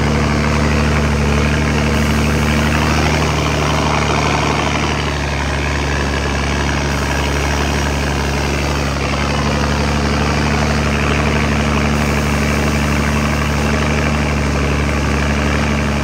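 A heavy vehicle engine running steadily with a constant low hum, under the rushing of floodwater being pushed aside and churned around it.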